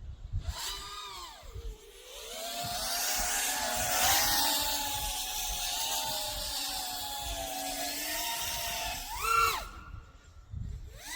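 Brushless motors and propellers of a 5-inch FPV freestyle quadcopter, an iFlight Nazgul XL5, whining in flight. The pitch rises and falls with the throttle and is held high through the middle. There is a sharp punch-out and drop near the end, with wind rumble underneath.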